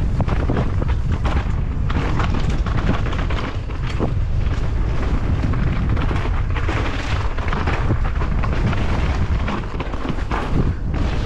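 Wind buffeting the microphone with a heavy, constant rumble, over a downhill mountain bike rattling down rough trail: tyre noise on dirt and many short knocks from the bike.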